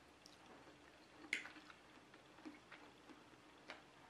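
Quiet eating of spaghetti: a few soft, sharp mouth clicks from chewing and light fork taps on a plate, the clearest about a second in, over near silence.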